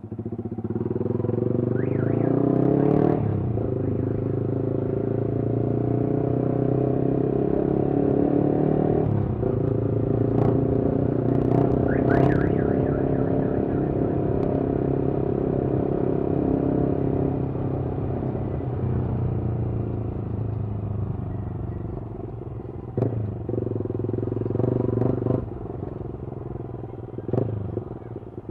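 Vehicle exhaust running loud through a Pro Liner muffler with no dB killer fitted. The engine note holds steady, broken by a few short sharp cracks and dips in level.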